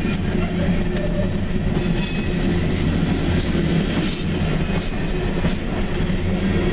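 Empty coal hopper cars rolling past close by: steel wheels and trucks rumbling and clattering steadily on the rails, with a few clicks in the second half.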